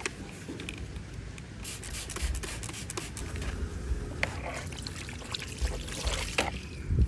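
Hands scrubbing and wiping a motorcycle air filter case with soapy water: rubbing strokes with some trickling water and small handling knocks.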